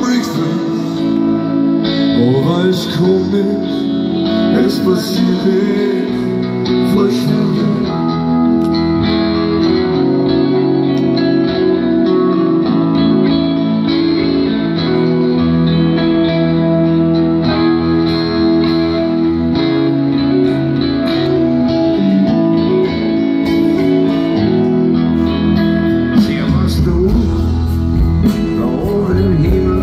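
Live acoustic music: a steel-string acoustic guitar playing chords, with male voices singing at times, strongest near the start and again near the end.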